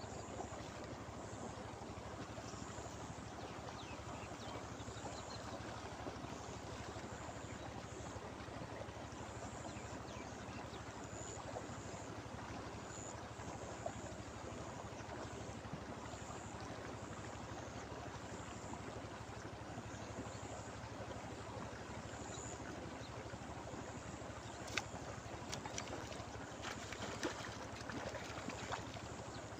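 Steady rush of river water flowing over a small rapid, with a few sharp clicks near the end.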